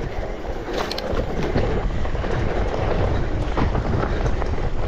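Electric mountain bike ridden over a dirt trail: wind rumbling on the microphone and tyres running over the ground, with scattered knocks and rattles from the bike.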